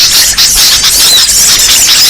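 Dense, very loud chorus of many small birds chirping and twittering at once, high-pitched calls overlapping without a break: a bird-lure (pikat) recording of a noisy flock of small birds.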